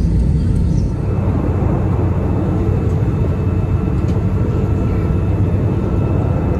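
Steady rumble of jet airliner cabin noise, the engines and rushing air heard from inside the passenger cabin; its tone shifts slightly about a second in.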